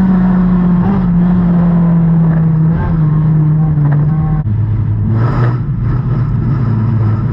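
Dirt-track race car engine heard from inside the cockpit, running hard with its note easing down. About four and a half seconds in it drops to a much lower note as the car slows behind the pack ahead.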